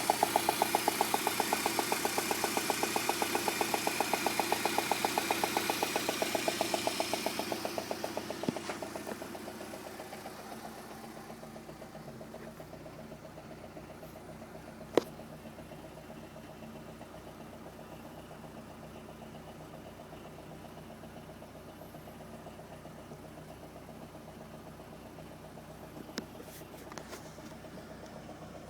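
Peugeot 106 GTI's 1.6-litre 16-valve four-cylinder engine idling with a rapid, even knock, loud at first and dropping to a quieter steady run after about eight seconds, with a sharp click about halfway through. The owner traced the knock to a failed spark plug.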